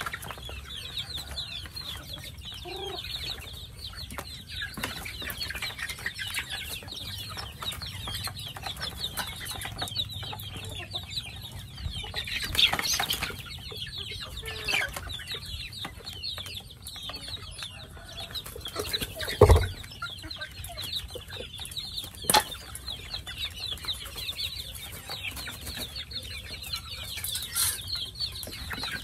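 A flock of chickens clucking while they feed. Two sharp knocks about two-thirds of the way through, the first the loudest sound.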